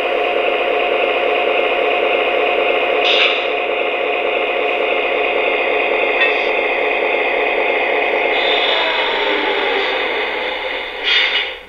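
O-scale Atlas Reading F7 diesel locomotive model playing its onboard diesel engine sound through its small built-in speaker, steady, with a few brief sharper bursts and a louder one near the end.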